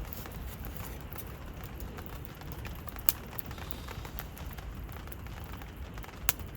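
Steady rainfall, with two sharp taps about 3 and 6 seconds in.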